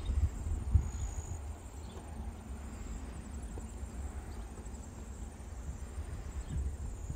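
Wind buffeting the microphone as a low, uneven rumble, with a faint, high, steady insect trill above it.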